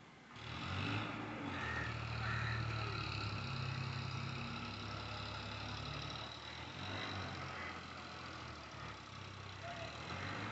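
Sonalika DI 740 III tractor's diesel engine running steadily. It picks up about half a second in and eases slightly after about seven seconds.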